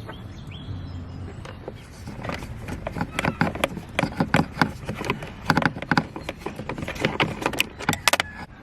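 Hand ratchet wrench clicking in short irregular runs as the two top bolts of a car's instrument cluster are backed out of the dashboard.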